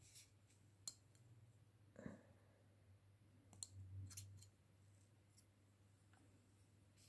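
A few faint, scattered clicks and taps of a scalpel blade pressing down on the hard dish as it cuts dried African violet pollen sacs in half, over a low steady hum.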